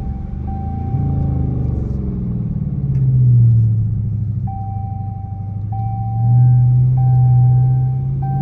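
Straight-piped Dodge Charger R/T's 5.7-litre HEMI V8 exhaust rumbling, heard from inside the cabin while the car drives and slows down. It swells louder twice, about three and six seconds in.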